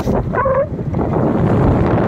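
Wind buffeting the microphone on a moving motorbike, over a steady rumble from the ride. A short pitched sound cuts in briefly about half a second in.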